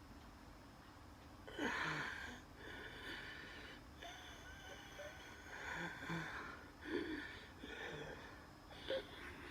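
Wheezy, laboured breathing from a person having an asthma attack. After about a second and a half of quiet, a run of breaths begins, each carrying a high whistling wheeze.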